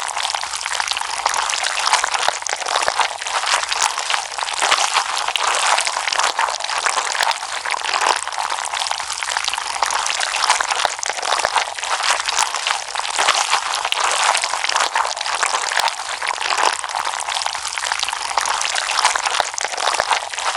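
Slime being squeezed and kneaded by hand: a dense, unbroken run of wet crackling and small popping clicks.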